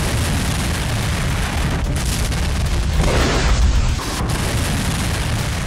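Airstrike explosions booming, a heavy low rumble with swells about two seconds in and again a little after three seconds.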